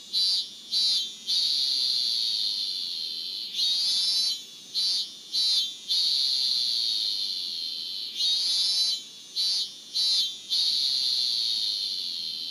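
Recorded song of a Minmin-zemi cicada (Hyalessa maculaticollis) played back through an educational toy's speaker. It comes in high-pitched phrases of a few short notes followed by one long held note, the phrase repeating about every four and a half seconds.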